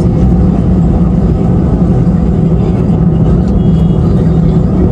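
Airliner engines heard from inside the passenger cabin: a loud, steady noise with a low hum, unchanging throughout.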